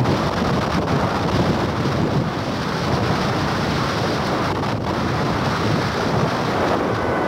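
Strong dust-storm wind buffeting the microphone: a steady, dense rush of noise with no let-up.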